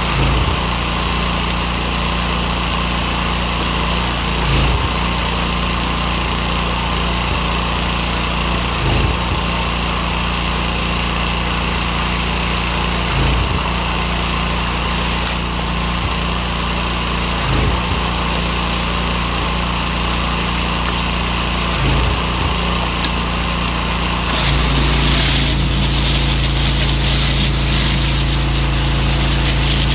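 Petrol pressure washer's small engine running steadily, with a brief surge about every four seconds. About 24 seconds in, the engine note drops and a louder hiss of the water jet comes in.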